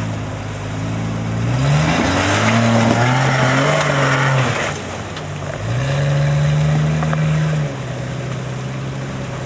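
Jeep Cherokee XJ engine revving hard twice while climbing a rock ledge, dropping back in between and settling to a low steady run near the end. A rush of tyre noise on the rock comes with the first rev.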